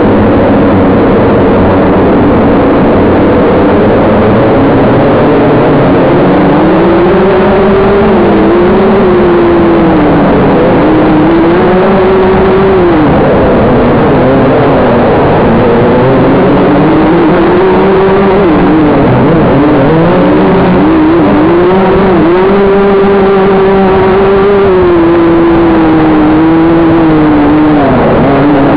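Racing dirt kart engine heard from on board, loud and continuous, its pitch rising as it accelerates and dropping as it slows, over and over through the laps.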